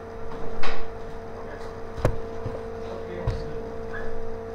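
Steady electrical hum with a few knocks and clicks over it: a loud cluster about half a second in, a sharp click about two seconds in, and a dull thump a little after three seconds.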